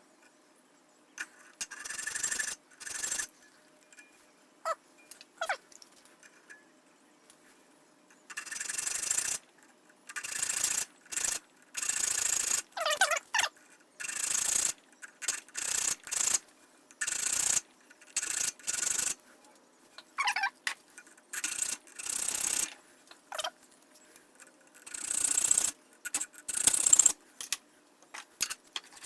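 Hand file rasping across the steel spine of a cleaver forged from a mower blade, in separate push strokes. A few scattered strokes at first, then a steady run of about one stroke a second, some with a short squeal of the file on the steel.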